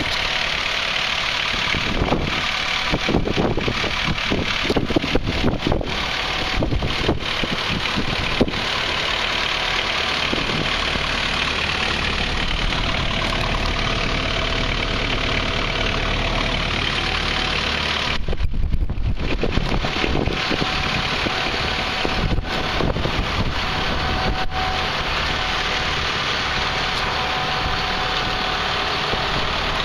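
JCB 57C-1 compact excavator's diesel engine running steadily, with a string of knocks and clatter over the first several seconds and a brief dip about two-thirds of the way through.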